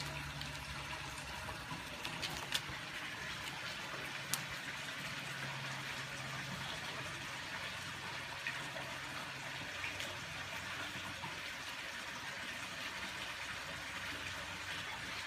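Steady background hiss with a low hum under it, and a few faint light ticks.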